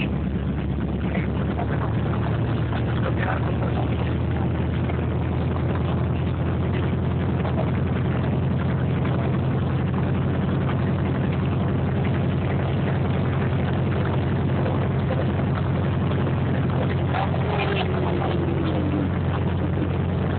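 Light airplane's piston engine and propeller droning steadily, heard inside the cabin.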